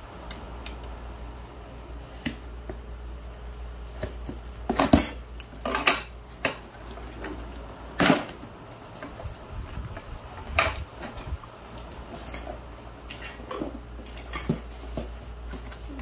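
A taped cardboard box being opened with scissors: tape cut, flaps pulled and bent back, and metal scissors knocking on a wooden chair seat. It comes as a string of sharp knocks and scrapes, the loudest about five, eight and ten and a half seconds in, over a steady low hum.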